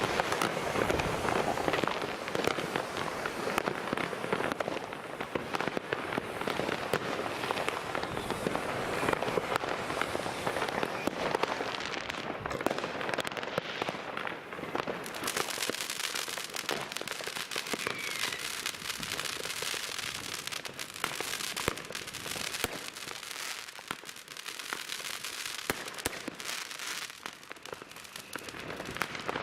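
Fireworks: a dense, continuous barrage of overlapping bangs and crackling. About halfway through the deeper bangs thin out, leaving mostly sharp crackle.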